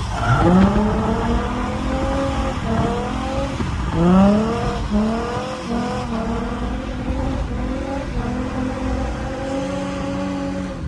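Holden Commodore V6 drift car engine revving hard on track. The revs climb sharply at the start and again about four seconds in, with a string of quick short revs, then hold fairly steady, over a constant noise of tyres on the wet surface.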